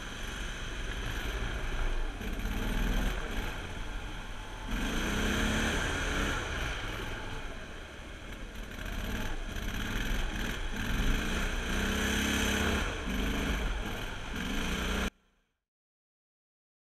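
Copperhead surface-drive mud motor running hard as it pushes a flat-bottom boat through marsh vegetation, its level swelling and dipping as the load changes. The sound cuts off suddenly near the end, leaving silence.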